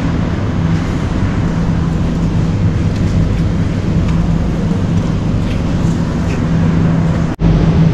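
Steady low hum of supermarket refrigerated display cases and ventilation. It breaks off for an instant near the end.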